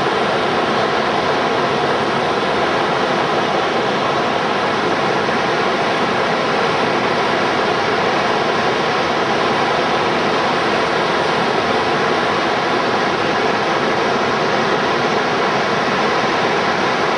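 Rushing river rapids: the steady roar of fast water breaking in a standing river wave.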